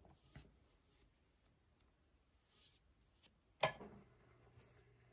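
Soft swishes of a brush spreading thinned glue over a tumbler. A sharp knock comes about three and a half seconds in, followed by a faint steady hum.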